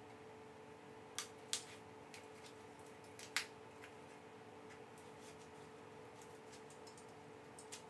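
A few faint, sharp snips and clicks of packaging being cut and worked off a metal chair-leg frame: two about a second in and a louder one a little past three seconds. A steady faint hum runs underneath.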